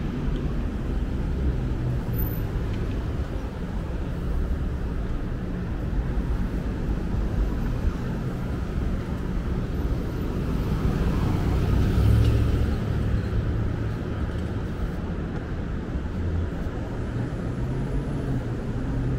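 Street traffic: motor vehicle engines running as a steady low rumble, swelling louder about two-thirds of the way through as one passes close.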